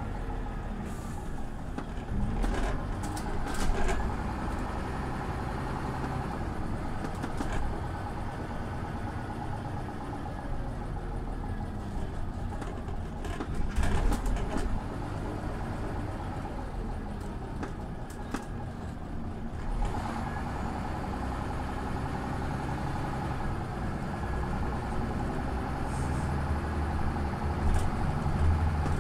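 Scania OmniLink CL94UB city bus running, with a steady engine note and road noise. There are a few sharp rattles or knocks about three seconds in and again around fourteen seconds, and the engine gets louder near the end.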